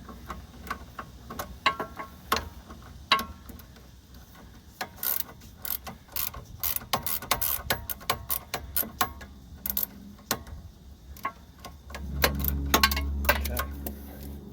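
18 mm ratchet clicking as it turns a sway bar link nut, a T40 Torx bit holding the stud. The clicks come in quick runs with pauses between strokes. A louder low rumble with more clicks comes near the end.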